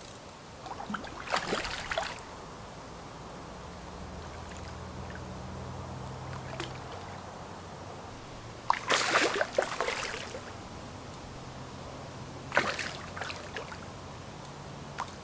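Hooked carp splashing and thrashing at the water's surface as it is played in and netted. There are three bursts of splashing: about a second in, around nine seconds (the loudest), and again around twelve and a half seconds.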